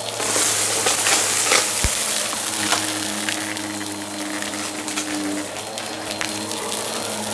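Bissell bagless upright vacuum running steadily on a rug, its motor humming under a continuous crackle of small debris rattling up through it, with a single knock about two seconds in.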